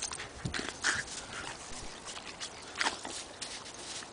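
Young Bernese mountain dog rolling and scrambling in crusty snow: scattered short crunching and scuffing sounds.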